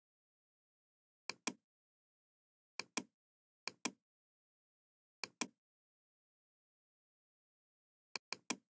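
Computer mouse clicking in quick pairs: four double-clicks and a triple click near the end, with dead silence between them.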